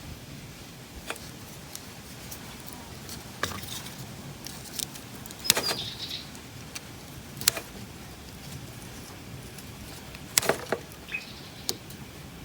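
Hand tools and metal parts clicking and clanking while a part is being removed from a ride-on lawnmower: scattered sharp knocks, the loudest about five and a half and ten and a half seconds in, one with a short metallic ring.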